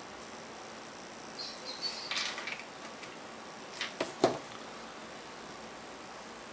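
Handling noise from a ring-making mold being pressed together by hand: a brief rustle about two seconds in, then a few light clicks and a tap about four seconds in.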